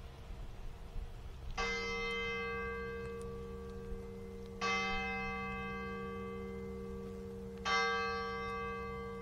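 A single large church bell in a cathedral tower tolling slowly, struck three times about three seconds apart. Each stroke rings on with a long, slowly fading hum.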